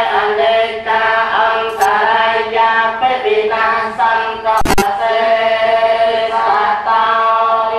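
Buddhist monks chanting Pali verses in unison, a steady group chant of held, intoned syllables. One sharp knock cuts through it a little past halfway.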